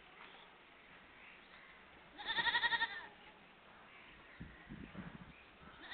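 A goat bleating once, a wavering call a little under a second long about two seconds in. A few faint low knocks follow later.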